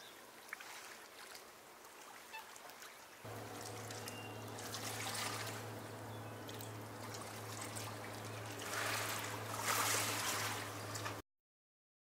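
Faint trickling and lapping of lake water at the shore, swelling a few times and loudest near the end. A steady low hum joins it suddenly about three seconds in.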